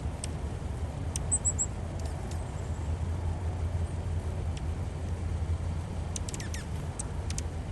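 Steady low rumble like distant traffic or wind, with a quick run of four short, high bird chirps about a second and a half in, and a few faint ticks near the end.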